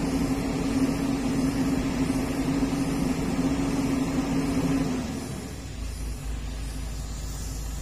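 Komatsu PC200-8 excavator's diesel engine running with a steady pitched hum; about five seconds in the hum stops and the sound drops to a quieter low rumble.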